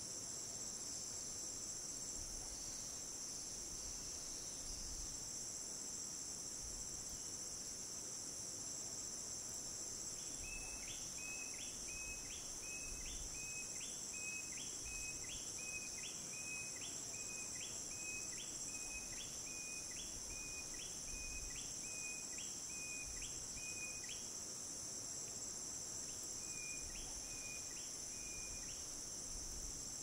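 Steady, high-pitched chorus of crickets and cicadas. From about ten seconds in, a second creature adds a repeated short call, roughly one or two a second, stopping for a couple of seconds near the end and starting again briefly.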